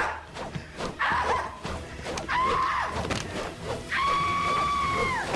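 A man screaming in a high, shrill voice: three short yelps, then one long scream about four seconds in that drops in pitch as it ends. Sharp slaps or whacks land between the cries.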